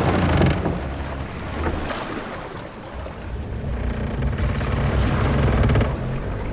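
Ship-at-sea ambience: waves washing against the hull, with wind, over a deep low rumble. It comes in slow swells, loudest at the start and again about five seconds in.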